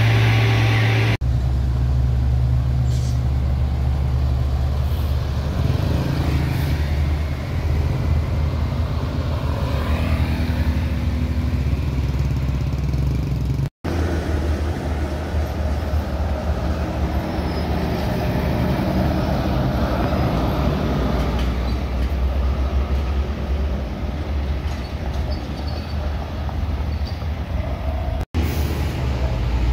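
Large buses driving past on a highway, engines running with a strong, steady low hum and some shifting pitch as they go by. The sound breaks off abruptly twice where short clips are joined.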